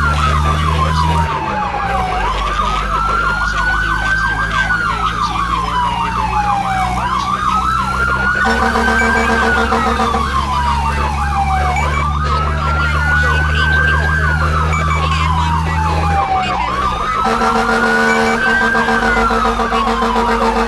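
Emergency sirens of fire-rescue vehicles responding to a fire alarm, heard over a steady engine drone. One siren wails in a slow rise and fall about every five seconds, layered with a faster warbling siren. A steady lower tone comes in twice, near the middle and near the end.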